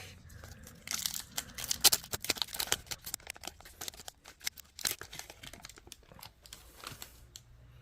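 A trading-card pack's foil wrapper being torn open and crinkled: a run of sharp crackles and rips, busiest in the first few seconds, then thinning out.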